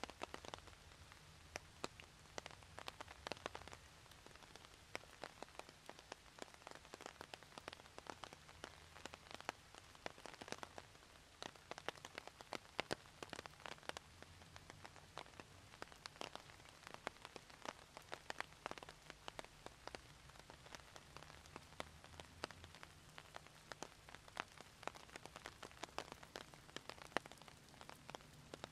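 Rain, with a dense run of sharp ticks from single drops landing close by over a soft hiss, and a faint low hum underneath.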